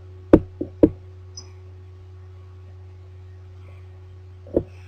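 Three quick dull knocks in the first second and one more near the end, over a steady low hum. A single short, faint cricket chirp comes about a second and a half in.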